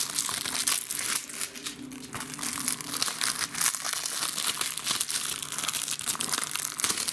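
Plastic shrink-wrap being torn and peeled off a DVD case: steady crinkling and crackling with many small sharp snaps.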